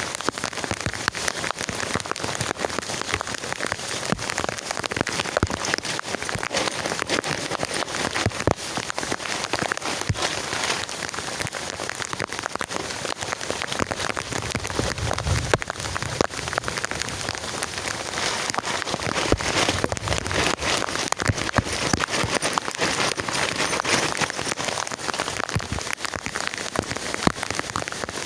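Heavy rain falling steadily, with many separate drops pattering close by on a surface.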